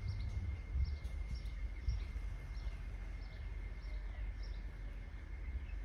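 Outdoor ambience of birds chirping: short, high, falling chirps repeated every half second or so over a low steady rumble, with a faint steady high-pitched tone underneath.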